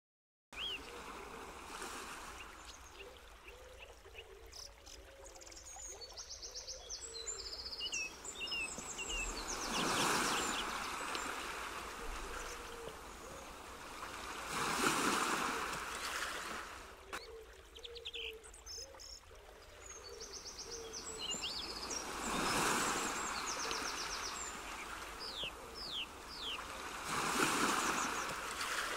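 Nature ambience: rushing water that swells and falls back every five to seven seconds, with birds chirping and trilling at intervals.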